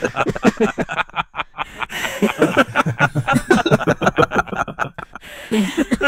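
AI-generated sound effect of four men chuckling and snickering softly together in short overlapping bursts, with a brief pause about a second and a half in.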